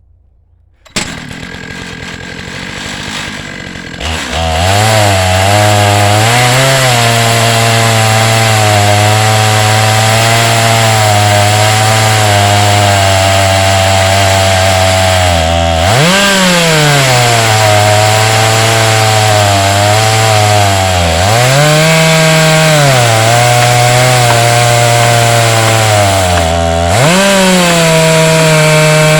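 Chainsaw on an Alaskan chainsaw mill starting up about a second in and running at a lower speed. It is then throttled up at about four seconds and runs at full speed ripping lengthwise through a 12-foot log. The engine pitch dips and swings back three times as the saw loads up in the cut.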